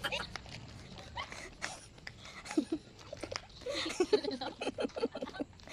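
Faint, indistinct voices with scattered clicks and knocks of handling.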